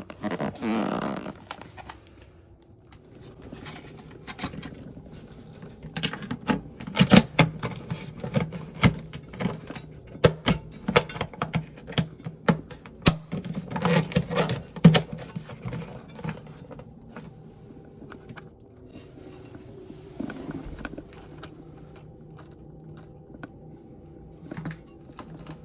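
Irregular clicks, knocks and rattles of hard parts being handled and fitted during a toilet tank repair, busiest in the middle of the stretch, over a steady low hum.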